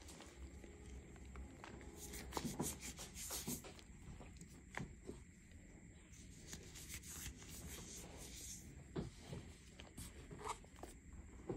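Hands squeezing and crumbling dry chunks of blue cornstarch and gym chalk with glitter: faint, irregular little crunches and a dry, powdery rubbing hiss, busiest about two seconds in and again around the eighth second.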